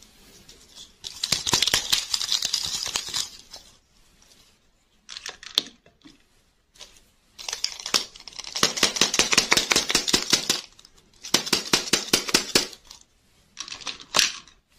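Plastic candy wrappers crinkling and crackling as hands handle wrapped ball lollipops, in about five bursts of one to three seconds with short quiet gaps between.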